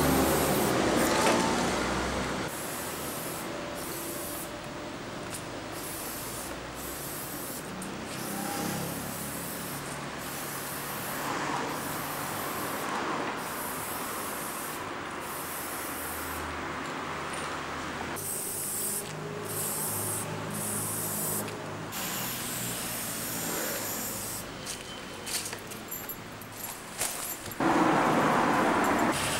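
Aerosol spray-paint can hissing in repeated bursts with short breaks as a slogan is painted on a brick wall. A louder rushing noise fills the first couple of seconds and returns near the end.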